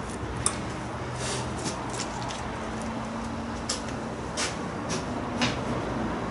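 Workshop room tone with a steady low hum, broken by a few scattered light knocks and clicks from handling and moving about.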